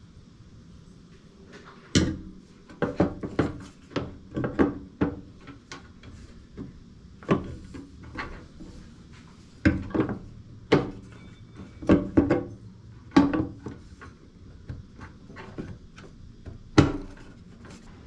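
Fuel sender cover plate being handled and set down over the studs of a metal fuel tank's sender flange: a series of irregular sharp knocks and clacks, metal against metal. The loudest knocks come about two seconds in, around the middle, and near the end.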